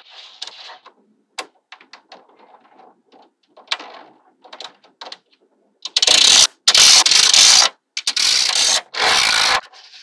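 Small magnetic balls clicking and ticking as a strand is laid into place, then four loud scraping rattles from about six seconds in as rows of balls are slid and pushed across the sheet of balls.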